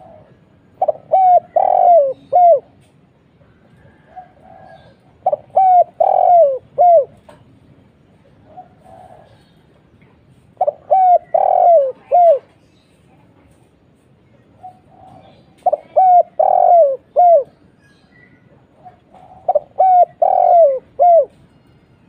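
Spotted dove (tekukur) cooing: five repeated phrases about every four to five seconds. Each phrase is a quick run of short coos building to a longer coo and ending on a short one, with a faint soft note before most phrases.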